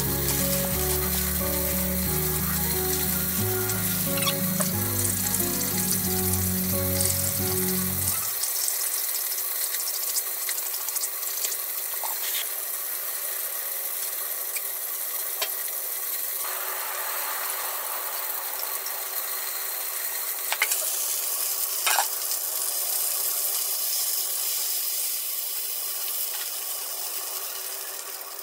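Oil sizzling steadily in a frying pan where stuffed eggplant is frying, with background music that stops about eight seconds in and a few sharp clicks from handling.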